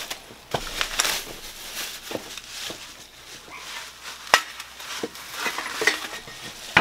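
Rustling and scattered small clicks and knocks as replacement grill parts and their plastic packaging are handled, with one sharp knock about four seconds in.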